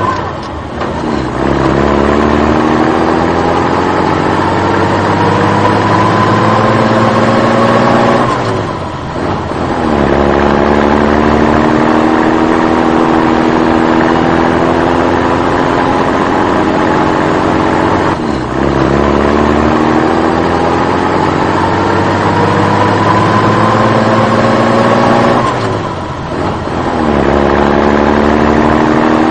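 Vehicle engine accelerating through its gears. The pitch climbs steadily for several seconds, falls back with a short dip at each gear change, then climbs again; this happens about every eight to ten seconds.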